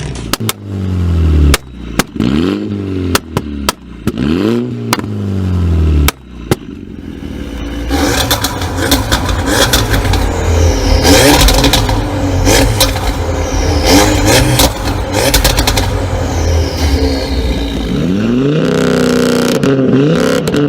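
Tuned car engine being revved in quick blips, its exhaust popping and crackling each time the revs drop back. From about eight seconds in the engine runs louder and steadily under throttle, with more cracks through it, and near the end there are a few more blips.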